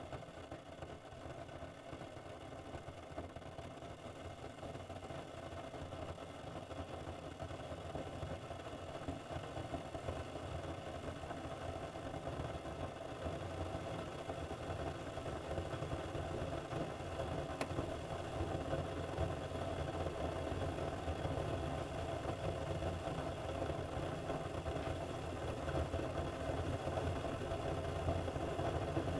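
Keurig single-serve coffee maker brewing: a steady low hum from its water pump, growing gradually louder, with one faint click partway through.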